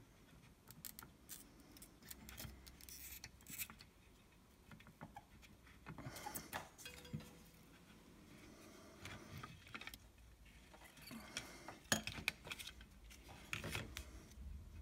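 Scattered small clicks, taps and rustles as a small circuit board and its wires are handled during soldering. The sharpest click comes about 12 seconds in.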